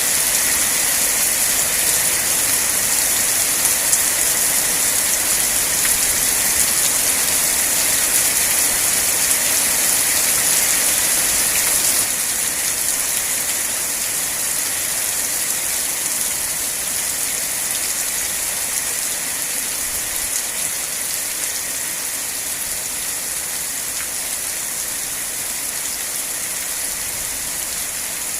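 Steady rain falling, a dense even hiss with no separate drops standing out. It becomes a little quieter about twelve seconds in.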